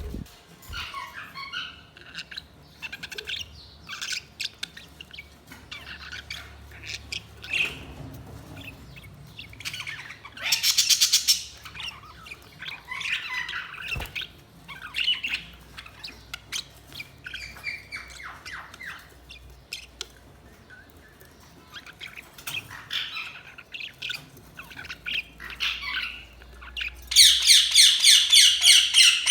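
Budgerigars chirping and warbling in short scattered calls. About ten seconds in comes a loud burst of rapid calls, and a loud fast run of repeated squawky calls starts near the end.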